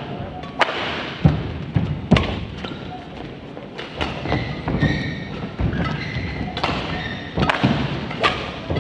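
Badminton rally: rackets hitting the shuttlecock back and forth, sharp hits about once a second, among players' thudding footfalls on the court.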